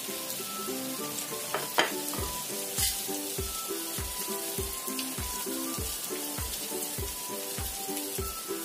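Wonton-wrapped chicken rolls deep-frying in a small pan of hot oil, a steady sizzle. Background music plays over it, with short repeating notes and a steady low beat of about two thumps a second that comes in about two seconds in; a sharp click sounds just before.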